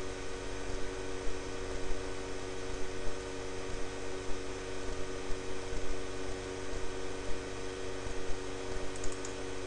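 Steady electrical hum made of several unchanging tones over a low background hiss.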